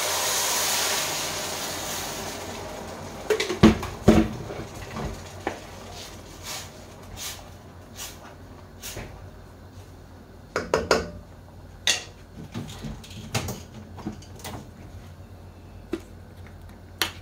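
Hot oil in a stainless steel pan sizzling loudly as blended fresh tomato is poured in onto sautéed onion and garlic, dying down over the first two or three seconds. Then scattered knocks and clinks of kitchenware against the pan, the loudest a pair about three and four seconds in.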